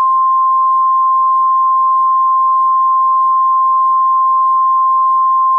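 NOAA Weather Radio warning alarm tone: one loud, steady tone of about 1050 Hz. It signals that an emergency alert message is about to follow.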